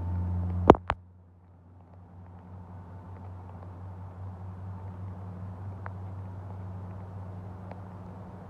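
A steady low mechanical hum, like an engine running nearby, under faint outdoor noise. Two sharp clicks come just under a second in, after which the background noise drops and slowly builds again.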